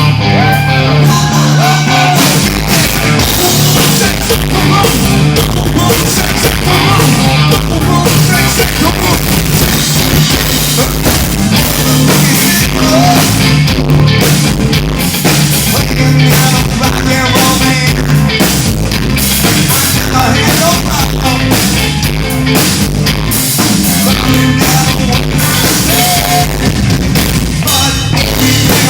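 Rock band playing live, loud and steady: drum kit, guitar and singing.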